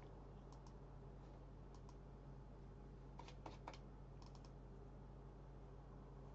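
A few faint computer mouse clicks, the first around half a second in and a cluster a little past the middle, over near-silent room tone with a low steady hum.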